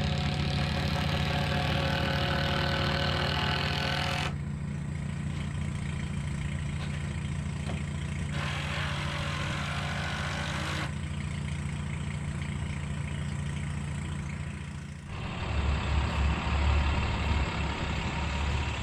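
An engine runs steadily with a constant low hum. About fifteen seconds in it gives way to a lower, louder truck engine idling: the well-drilling rig's truck.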